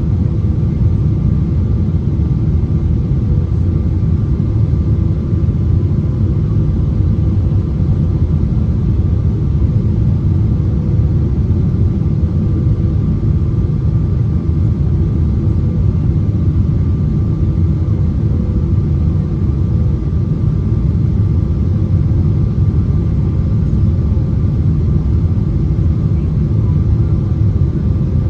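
Steady cabin roar of a Boeing 777-300ER on approach with its landing gear down: airflow and the GE90 engines, a deep even rumble with faint steady tones above it.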